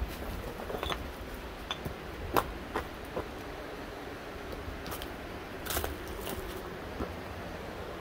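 Footsteps crunching on loose shale and rock debris: a handful of irregular crunches and clicks over a steady low rushing background.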